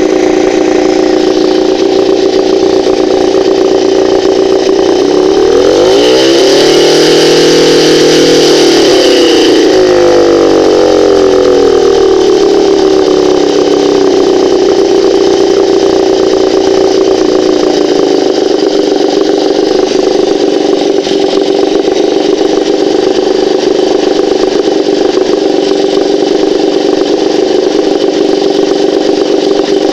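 Moskva-M two-stroke twin-cylinder outboard motor running, revved up briefly about five seconds in, then easing back down to a steady idle. It runs evenly, without knocking or ringing, now that the ignition coil core no longer catches on the flywheel.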